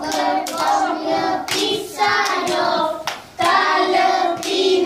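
A group of young children singing a song together in short phrases, with hands clapping along.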